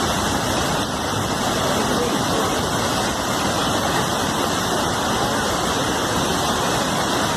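Rushing floodwater, a steady dense noise with no breaks.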